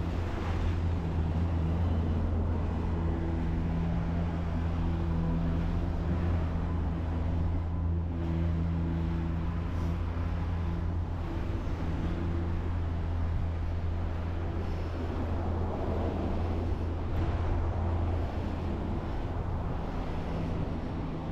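Steady low hum of a running vehicle engine close by, easing off near the end, over general street traffic noise.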